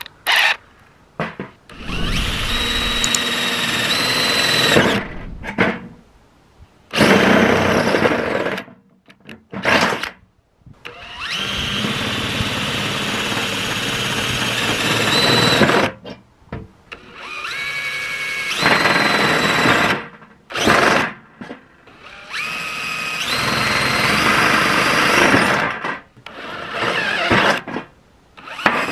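Cordless DeWalt drill driving a titanium-coated HSS step drill bit through thin sheet metal. It runs in about seven bursts of one to four seconds, with short pauses between them. The motor whine climbs in pitch as the drill speeds up within a burst.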